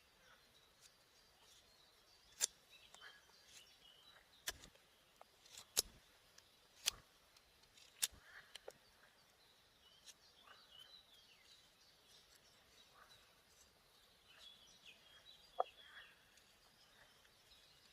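A knife cutting into wood, giving a few sharp, irregularly spaced cracks, five in the first half and one more later, against faint chirping birdsong.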